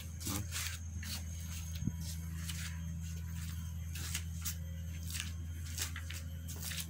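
A cat chewing and crunching food, irregular short crisp clicks, over a steady low hum.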